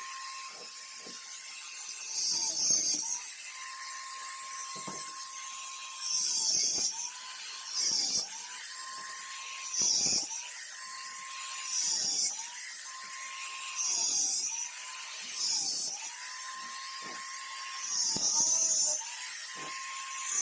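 Small high-speed electric cutting tool running with a steady whine that bogs down briefly about every two seconds as it bites into the old rusted wheel spokes. Each bite adds a louder grinding hiss.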